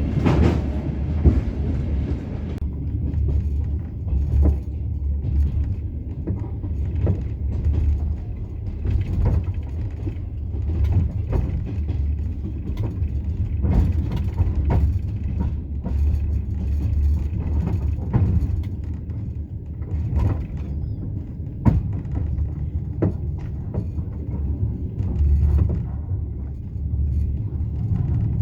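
Passenger train running along the track, heard from inside the carriage: a steady low rumble of the wheels on the rails, with frequent irregular knocks and creaks from the wheels and the carriage.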